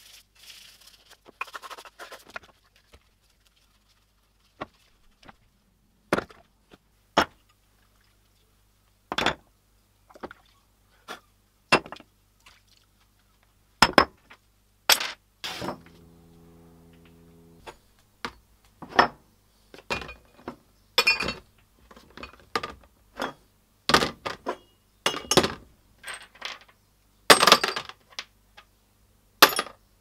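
Rusty metal coffee grinder parts clinking and knocking as they are handled and set down: many separate sharp clinks, more frequent in the second half. A brief scrubbing rub comes at the start, and a short low buzz a little past halfway.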